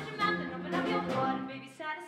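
Song from a stage musical: voices singing over instrumental accompaniment, dipping briefly near the end.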